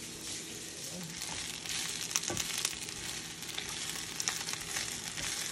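Onion and fresh spinach sizzling in oil in a frying pan. The sizzle grows louder about two seconds in as the spinach goes in, with a wooden spatula scraping and clicking against the pan as it is stirred.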